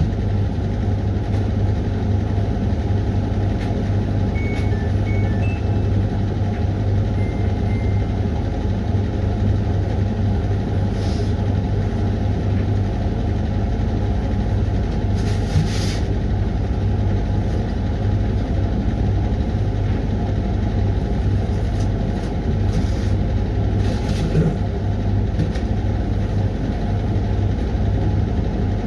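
Hoover washing machine running early in its 20-minute Refresh cycle: a steady low mechanical hum, with a few brief swishes from inside the drum.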